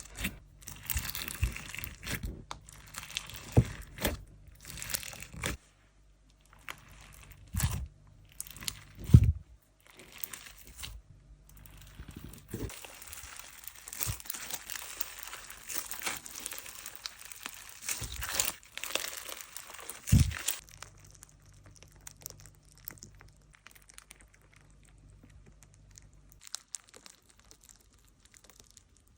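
Slime being handled, crinkling and crackling with a few sharp sticky pops. It grows quieter after about twenty seconds.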